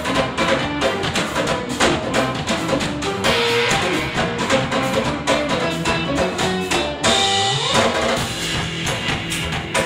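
Live trio of electric guitar, electric bass and drum kit playing, the drums keeping up a dense run of strokes under the guitar and bass. About seven seconds in, a note swoops sharply in pitch.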